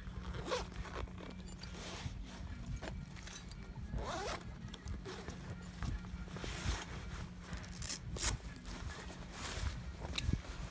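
A zipper pulled in several short, irregular strokes, with scraping and handling noises between them.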